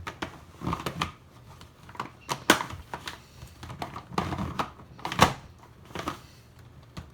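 Plastic clicking and clacking of a giant 18 cm He Shu Rubik's cube being turned by hand, in irregular bursts, with two louder knocks about two and a half and five seconds in. The cube is stiff to turn and its layers catch.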